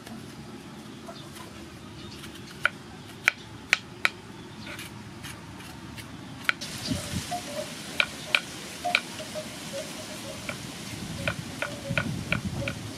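Kitchen knife knocking against a wooden cutting board while cutting bitter gourd: a few separate sharp knocks, then near the end a quick run of about five chops a second as the gourd is sliced.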